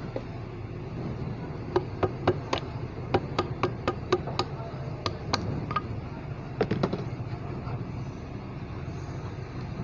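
Hammer tapping on metal inside a Bock FK40 bus air-conditioning compressor's crankcase while a piston is worked into place: about a dozen sharp taps from about two to six seconds in, then a quick cluster of knocks near seven seconds. A steady low rumble runs underneath.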